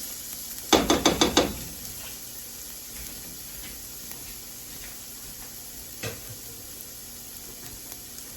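Onion, ginger and garlic sizzling in a frying pan while a utensil works the pan: about a second in, five quick knocks against the pan, and another single knock later.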